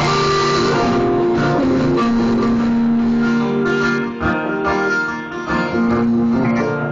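Live band music led by a strummed acoustic guitar, with an electric guitar playing alongside; it eases off in loudness about four seconds in.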